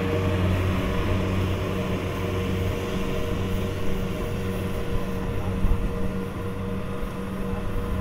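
Kubota DC-70 combine harvester running steadily as it cuts standing rice, its diesel engine a constant drone.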